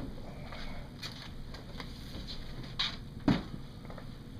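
Quiet room background with two short knocks about three seconds in, half a second apart, the second louder: things being handled and set down at a counter.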